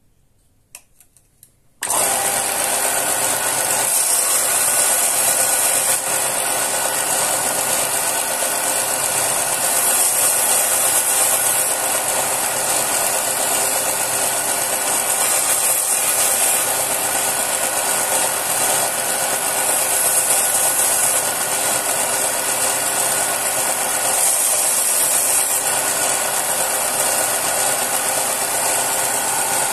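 Ryobi 4x36-inch belt sander starting up about two seconds in and then running steadily, a constant motor hum under a strong high hiss from the 120-grit belt. A steel knife blade is ground against the belt in short contacts, and the hiss swells every few seconds.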